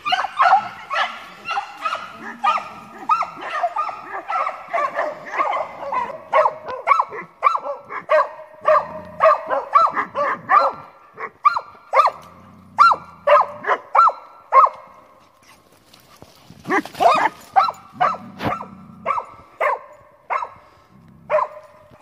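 Beagle barking over and over, about two barks a second, with a short pause in the latter half.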